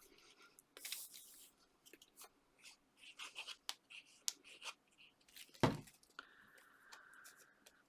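Card and paper being handled on a craft table: light rustles, scrapes and small taps, with one sharper knock just before six seconds in and a faint steady hiss near the end.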